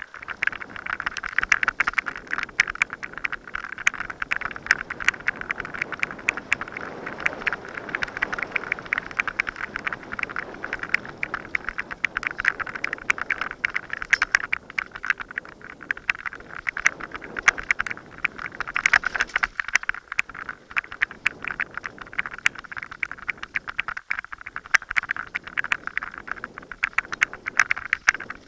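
Mountain bike descending a dirt forest trail: a constant rattle and clatter from the bike and the mounted camera over bumps and roots, many quick knocks, with tyre noise on the dirt underneath.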